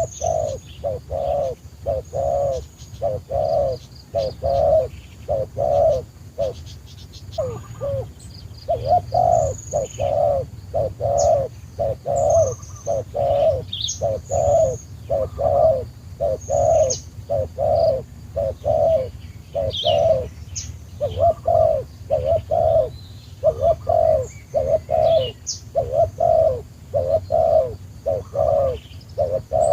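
A dove cooing in a long run of short, evenly spaced notes, about two a second, with a brief break around seven seconds in. Small birds chirp high and thin above it.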